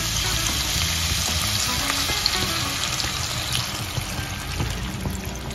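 Sweet and sour sauce sizzling and bubbling as it is poured into a hot wok of sautéed vegetables, with a spatula stirring through it. The hiss stays steady.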